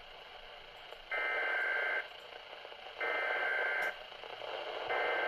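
Electronic alert tone of an emergency weather broadcast beeping three times, each beep about a second long with about a second between, over radio hiss.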